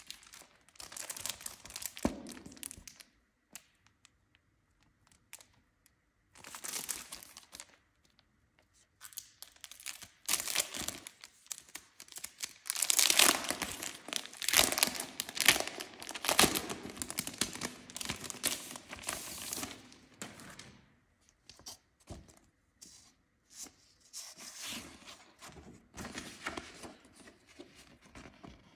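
Thin clear plastic packaging crinkling and tearing as it is pulled open by hand, in several bouts with the loudest stretch in the middle. Near the end, stiff plastic shrink-film sheets rustle as they are handled.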